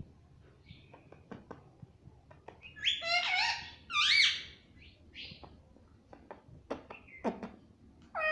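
Ring-necked parrot calling: scattered short chirps and clicks, two louder drawn-out calls that bend in pitch about three and four seconds in, then a few sharp falling chirps near the end.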